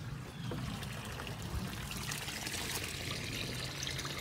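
Water pouring steadily into a stock tank from the pond pump's return, a constant splashing trickle.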